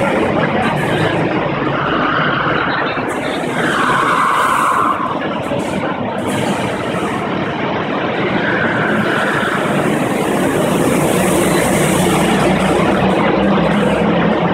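Several go-kart engines running as the karts lap the track, a loud steady din, with brief higher-pitched tones about two, four and nine seconds in.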